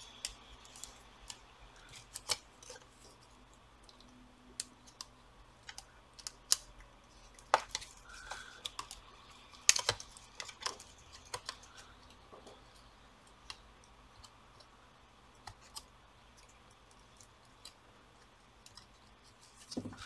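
Irregular light clicks and taps of a plastic laptop cooling fan being handled and seated back into the laptop's chassis, thicker in the first half and sparser later.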